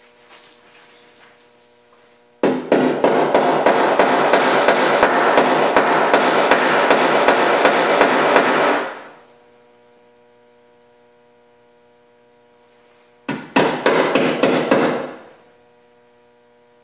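A hand-held power tool runs in two bursts, about six seconds and then about two seconds, with a rapid hammering rattle.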